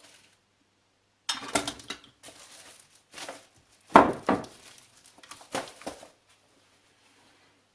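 A run of clanks and knocks as metal parts are handled and set down on a workbench, with the loudest knock about four seconds in.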